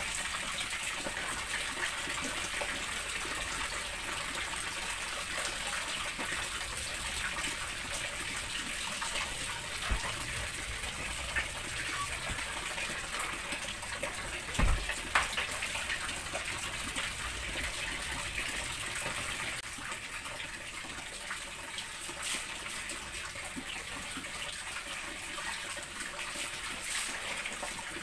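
Water running steadily, like a tap filling a tub or drum, with a low thump about halfway through.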